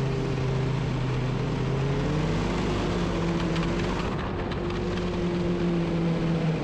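Ski-Doo Grand Touring 600 snowmobile engine running steadily under the rider while cruising along a packed-snow road. Its pitch rises a little about two seconds in and then holds.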